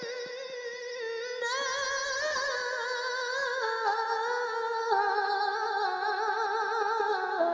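A single voice chanting Qur'an recitation in the melodic tilawah style, holding a long ornamented note with steady vibrato that steps through several pitches. It drops to a lower pitch near the end.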